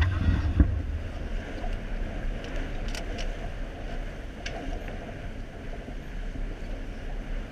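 Water rushing and splashing along the hull of a J80 sailboat under way, with wind buffeting the microphone as a steady low rumble. A few faint clicks come a few seconds in.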